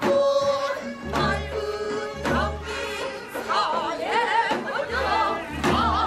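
Korean pansori-style singing with a wide, wavering vibrato over musical accompaniment, with deep low beats every second or two.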